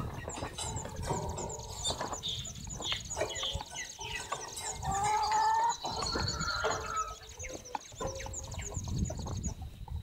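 Small wild songbirds chirping with many short, quick calls at a banana feeder, while domestic chickens cluck nearby; a few clearer rising calls come about halfway through.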